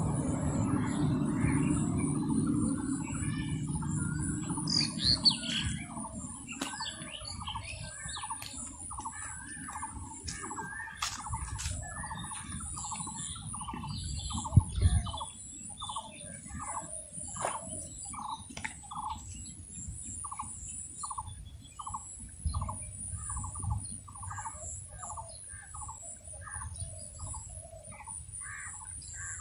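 Birds calling outdoors, one repeating a short, mid-pitched note about twice a second, over a steady high-pitched insect-like buzz. A low rumble fades out over the first few seconds, and there is a brief thump about halfway through.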